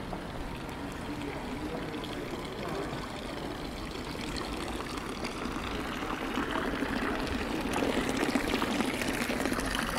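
Water pouring and splashing in a steady rush, getting louder from about six seconds in.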